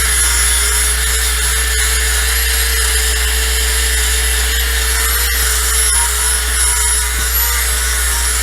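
Power grinder running steadily with a high whine, grinding the steel of a welded crack repair on a backhoe boom.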